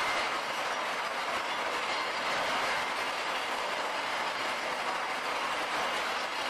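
Steady, dense clatter of cast-iron sprues, gates and runners tumbling inside a Didion rotary sprue crusher drum and sliding off its feed chute into the drum.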